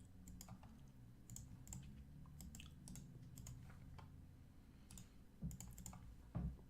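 Faint, scattered clicks of a computer keyboard and mouse over a low steady hum, with two slightly louder clicks near the end.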